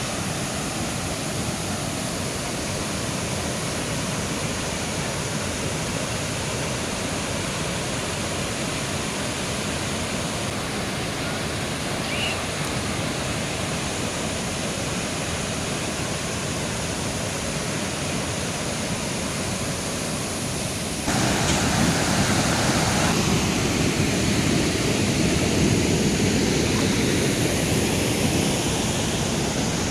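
Mountain river flowing: a steady rush of water that steps up suddenly louder about two-thirds of the way through.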